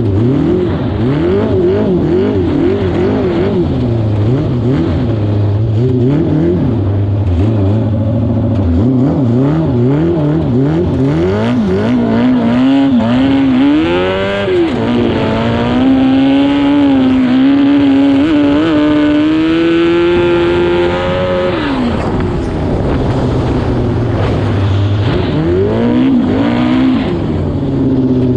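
Homemade lawn mower's 600cc Yamaha R6 inline-four motorcycle engine revving up and down over and over. About halfway through it climbs and holds high revs for several seconds, then drops back abruptly and goes on revving in short rises and falls.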